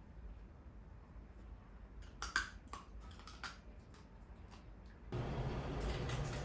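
A quick run of light, sharp clicks about two seconds in, then background music coming in near the end.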